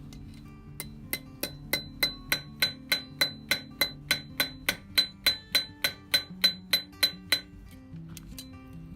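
Hammer striking steel on an anvil in a steady run of about three blows a second, each blow with a bright ring, stopping a little after seven seconds in. Background music plays underneath.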